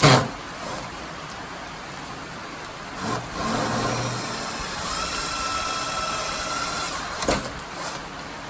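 A small motor whines steadily at one pitch for about two seconds, with a sharp knock just before and another after it, over a steady background hiss.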